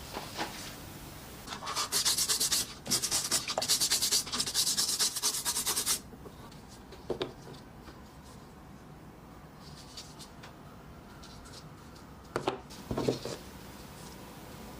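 Brisk, rapid rubbing or scrubbing strokes on a tool part for about four seconds, then a quieter stretch with a few light knocks.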